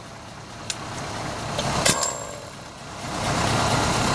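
A sharp metallic clink about two seconds in, then a steady mechanical running noise comes up about three seconds in and holds.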